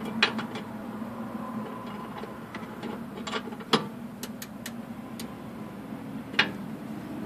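Open-end wrench clinking against the nut and suspension arm as the bolt on the rear upper control arm is worked loose. A scattering of sharp metallic clicks and ticks, the loudest near four seconds in and again about six and a half seconds in, over a steady low hum.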